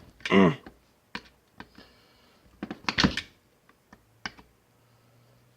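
Scattered clicks and knocks of hand tools on metal engine parts while a weed eater engine's ignition coil is being unfastened, the loudest knock about three seconds in.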